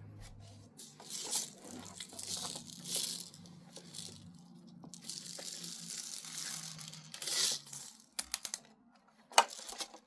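Steel BBs rattling and pouring in a series of bursts as they are loaded into an air rifle's BB reservoir, with a few sharp clicks near the end.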